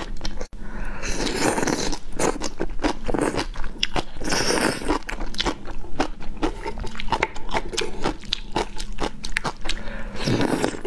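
Close-miked eating of a spicy, saucy stew: wet chewing and crunching in quick, irregular clicks, with slurps and a metal spoon scraping the plate.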